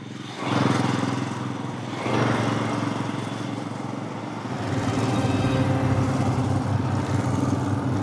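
Royal Enfield motorcycle riding past and away. Its engine picks up about half a second in and again about two seconds in, then runs steadily.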